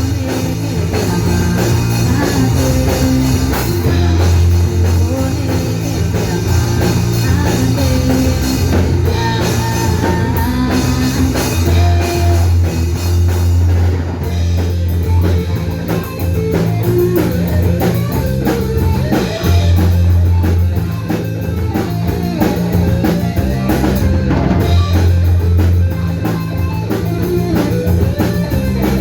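Rock band playing live: electric guitar, bass and drum kit, with long held bass notes under the guitar and a steady beat.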